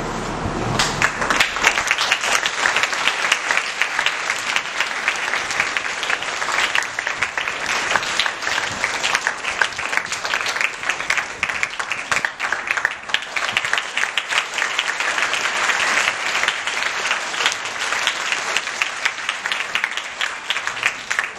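Audience of schoolchildren and staff applauding steadily: many hands clapping at once, at an even level throughout.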